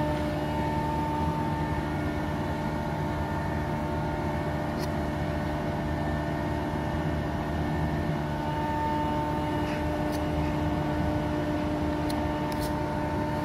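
Steady machine drone, a constant hum with a few faint clicks over it.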